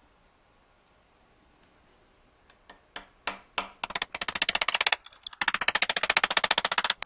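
Small hammer driving a 5/32-inch spring pin through two metal pieces clamped in a milling-machine vise. A few separate taps come first, then two runs of rapid light strikes at about ten a second, with a short break between them.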